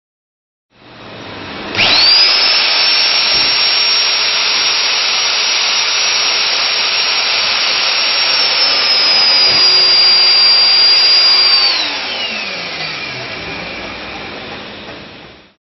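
Nitto Kohki Atra Ace magnetic drill motor starting with a quickly rising whine and running steadily as its cutter feeds into steel plate. About twelve seconds in the whine falls away as the motor spins down: reversing the feed handles has triggered the emergency stop.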